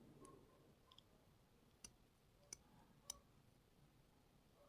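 Near silence, broken by a few faint, sharp clicks of small lock parts being handled while the lock's core and pins are felt and examined, three of them clearer about two to three seconds in.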